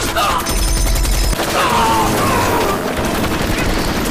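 Sustained rapid machine-gun fire from the helicopter, with bullets striking the wall. Several falling whines, like ricochets, cut through the fire.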